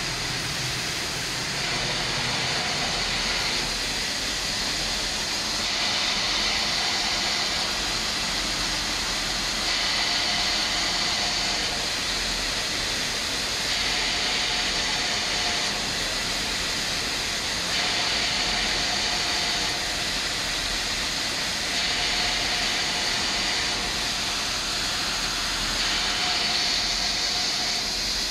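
Compressed air hissing through a Gema OptiCenter powder-coating system during a colour change, over a steady rush of air. The hiss swells for about two seconds in every four, in a regular on-off rhythm typical of the automatic purge that blows old powder out of the hoses and guns.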